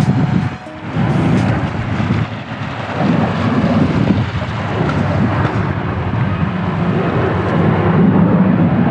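Wind buffeting the microphone: a loud, uneven rumble that rises and falls in gusts, with short dips.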